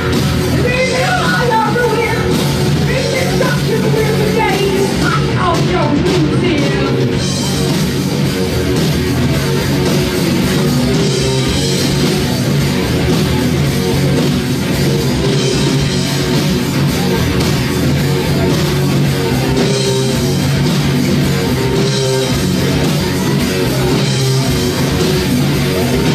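Live rock band playing loud and without a break: electric guitars and a drum kit.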